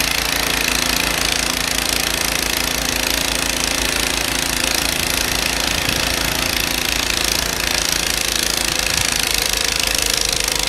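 Ariens Deluxe 30 snowblower's 306cc single-cylinder engine running steadily under load while clearing snow, a fast, even beat with a steady hiss over it.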